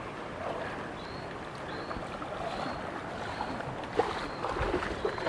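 Floodwater sloshing and splashing. A short, high chirp repeats about once a second, with a few clicks near the end.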